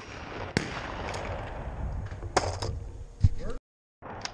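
Echo of a shotgun shot rolling back and fading over about three seconds, with a few sharp knocks along the way. The sound cuts out for a moment near the end.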